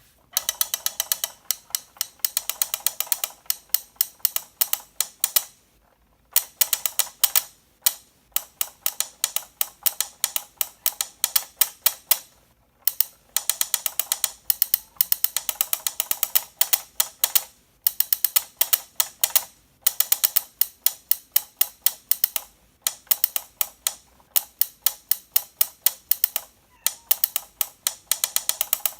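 Motor-driven arms of the two caveman drummer figures on a 1996 WACO Caveman alarm clock tapping out a drum routine: fast runs of sharp clicks broken by short pauses. The drum, cymbal and log are missing, and one arm's motor does not work.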